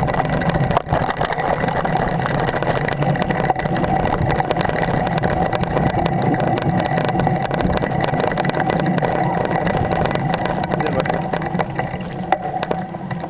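Wind rumbling on the microphone of a camera carried on a moving bicycle, with many small clicks and rattles from the bike as it rolls over a bumpy dirt trail.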